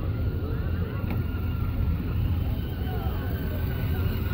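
Outdoor ambience on a city square: a steady low rumble with faint distant voices.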